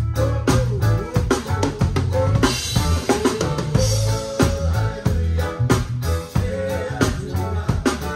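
Live band music recorded close behind the drum kit, with the drums loudest: kick drum and snare hits keeping a steady beat over a bass line.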